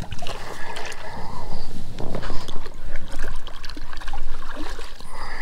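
Shallow water sloshing and splashing around flippered feet and a pontoon kickboat being pushed off a muddy bank, with scattered knocks and scrapes.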